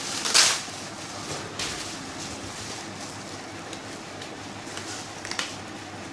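Plastic air-bubble packaging crinkling and rustling as it is pulled open, with a loud crackle about half a second in and smaller crinkles after.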